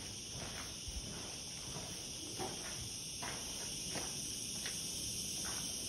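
Steady high-pitched chirring of crickets, with a few faint scuffs of footsteps on gravel and concrete.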